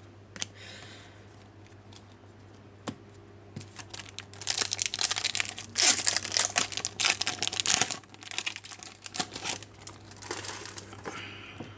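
Crinkling and tearing of a trading-card pack's wrapper as it is opened. A few light clicks come first, then about four seconds of dense crackling from the middle onward, fading to lighter crinkles near the end.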